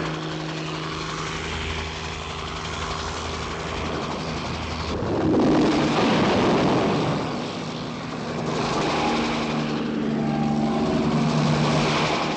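Bell 47 helicopter's engine and rotor running in flight, a steady mechanical drone that swells louder about five seconds in.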